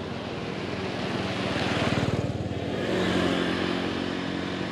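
A motorbike passing close by on the road, its engine growing louder to a peak about two seconds in, then swelling again just after.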